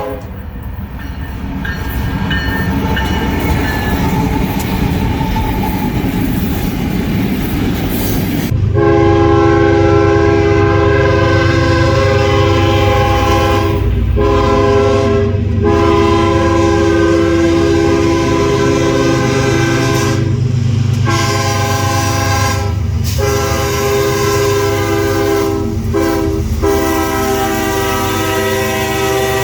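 Locomotive air horn sounding a chord of several notes. It starts about eight seconds in and is held in long blasts broken by several brief gaps, over the rumble of a passing train with wheels clacking on the rail joints.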